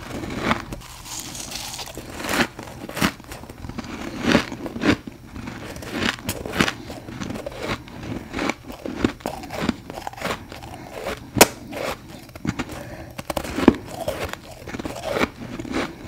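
Crunchy bites and chewing of powdery humidifier frost scraped from a mini freezer, with a sharp crunch every half second to a second.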